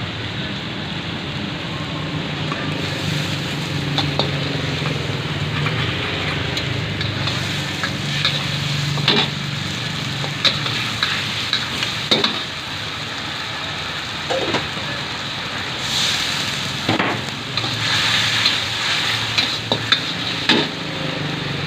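Black pepper fried rice sizzling in a wok, with a metal spatula scraping and clanking against the pan many times as the rice is stirred and tossed. A steady low rumble runs underneath.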